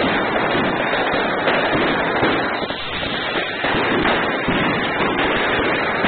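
Many fireworks and firecrackers going off at once: a dense, unbroken crackle of pops and bangs, easing slightly just before halfway.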